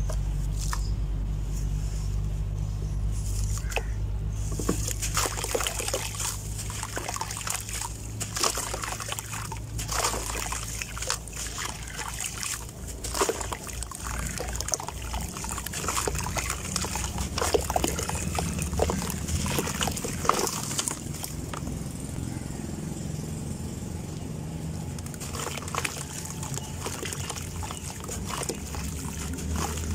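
Blocks of dry red dirt crumbled by hand into a tub of water: gritty crunching and crackling as the blocks break apart, with loose dirt trickling and splashing into the water.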